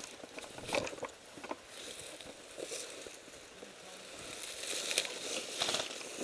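Faint rustling of tactical gear and dry brush at close range, with a few scattered short clicks.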